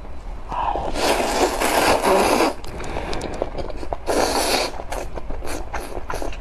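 Rice noodles slurped up from a bowl of soup, in two long loud slurps, one about a second in and one about four seconds in, with wet chewing clicks between them.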